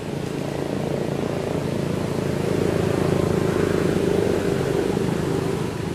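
A motor vehicle's engine hum that swells about halfway through and eases off near the end.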